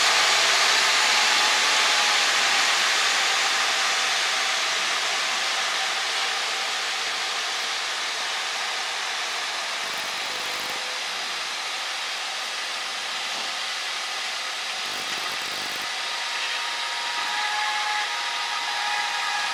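Cockpit noise of a single-engine Cessna with the throttle pulled to idle for a power-off stall: engine, propeller and airflow noise dies down over the first several seconds as the plane slows, then holds steady. A faint steady high tone comes in near the end.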